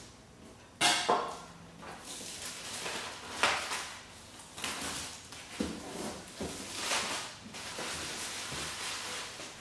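Plastic shrink-wrap being torn and pulled off a cardboard box, crinkling and rustling, with the loudest rips about a second in and again about three and a half seconds in.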